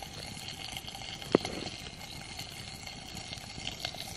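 Pork chop fat sizzling steadily in a pan over a campfire as it renders down. A sharp knife tap on a plastic cutting board about a second in, and a few lighter clicks near the end.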